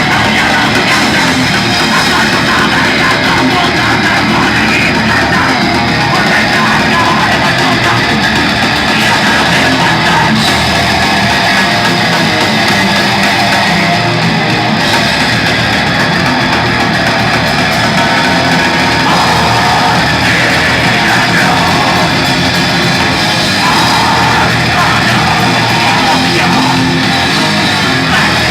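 Live band playing loud, heavy rock music with guitars, dense and unbroken throughout.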